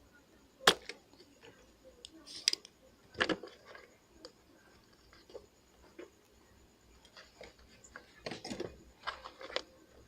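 Small hand tools clicking and snipping while a mouse cable's wire is prepared and fitted. There is a sharp snap about a second in, a few scattered clicks after it, and a quick run of clicks near the end.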